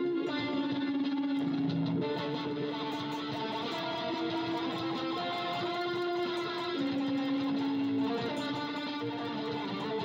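Electronic 'Lead 2' sound of a guitar-shaped JCordy instrument playing a melody of held notes that step up and down, over a light drum pattern.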